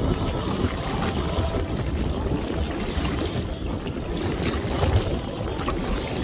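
Water rushing and splashing along the hull of a sailboat under way, with wind buffeting the microphone.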